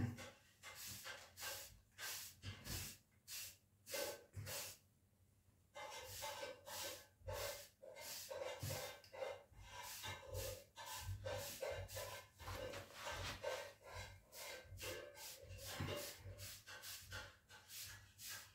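Faint, quick swishes of a soft hairbrush stroked through short, waved hair, about two to three strokes a second, with a pause about five seconds in.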